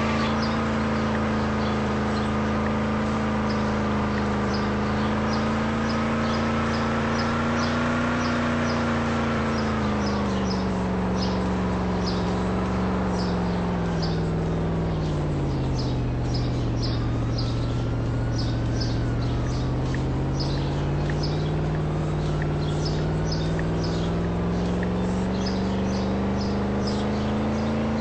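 Car engine running, its pitch sinking slowly for several seconds around the middle and then climbing back, as the revs drop and rise.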